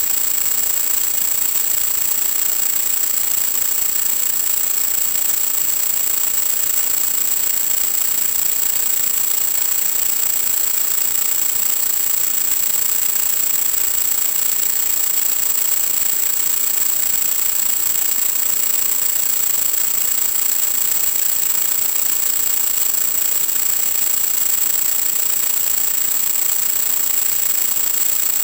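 Steady radio static hiss with a constant high-pitched whistle, from the audio channel of a 1.2 GHz analogue FPV video receiver.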